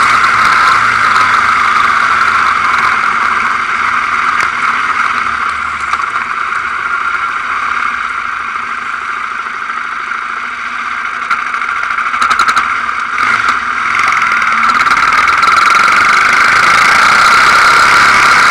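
Quad bike engine running while riding, heard through the camera housing. It drops to a lower level in the middle as the quad slows, with a few sharp knocks, then picks up again and runs louder as it accelerates away.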